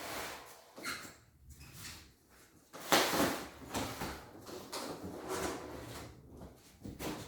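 Boxes and packaging being handled during an unboxing: irregular scraping and rustling, with the loudest scrape about three seconds in.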